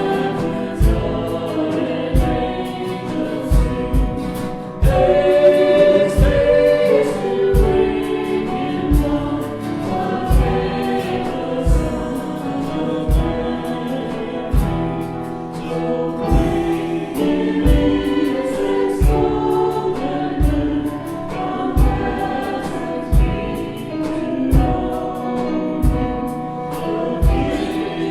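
Choir singing a gospel-style worship song over instrumental backing with a steady drum beat.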